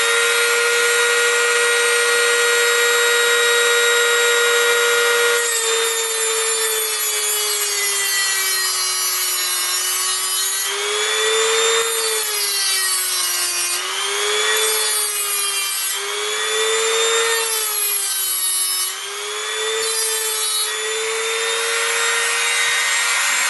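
Cheap Dremel-style rotary tool with a cutting disc running at a steady high whine, then cutting through the nickel spot-weld strip of a lithium-ion battery pack: from about five seconds in a grinding rasp rides over the whine, and the motor's pitch sags again and again as the disc bites. Near the end the whine steadies again as the disc runs free.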